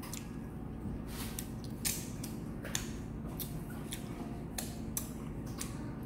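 Close-up chewing of crispy fried chicken: irregular short clicks, crunches and mouth smacks, roughly two a second, over a low steady hum.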